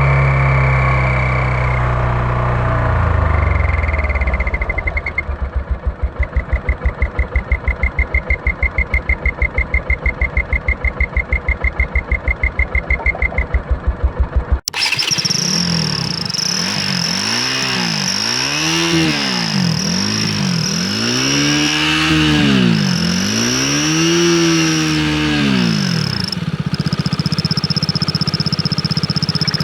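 KTM Duke 200 single-cylinder engine fitted with an exhaust turbo whistle. First the engine note falls and settles into a fast, even pulsing for several seconds. Then, after a sudden cut, it is revved up and down about six times with a high steady whistle over it, and near the end it settles to idle.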